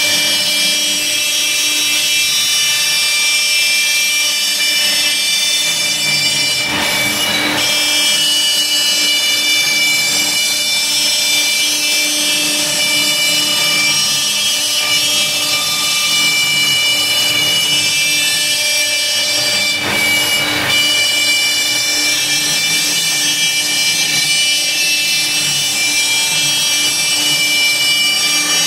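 Laguna Swift CNC router's spindle running with a steady high whine as its bit routes lettering into half-inch plywood, with the dust extraction running alongside. Twice, about a quarter and about two-thirds of the way in, the cutting noise briefly gets louder and harsher.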